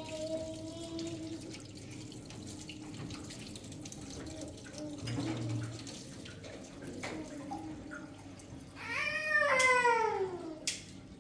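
An animal's single long cry about nine seconds in, rising briefly and then falling in pitch, over a faint wash of running water.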